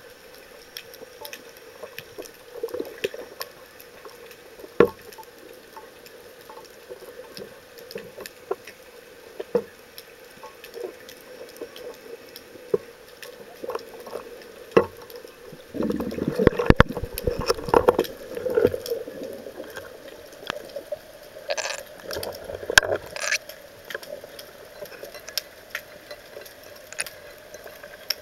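Underwater sound through a speargun-mounted camera's housing: a faint steady hum with scattered sharp clicks, and louder bursts of rustling noise about sixteen to nineteen seconds in and again around twenty-two seconds.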